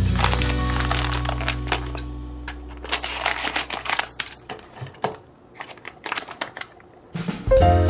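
Quick irregular clicks, taps and crinkles of small objects being handled, under background music that fades away over the first few seconds; a new music track comes in near the end.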